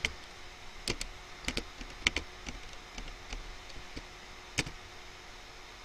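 Computer keyboard keys clicking as a word is typed: about eight irregular, sharp keystrokes, some in quick pairs, over a faint hiss.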